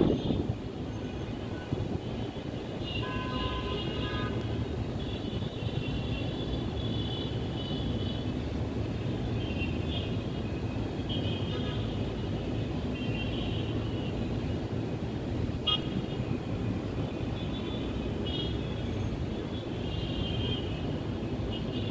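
Outdoor ambience: a steady low rumble with intermittent high, thin tones coming and going on top, each lasting a second or two.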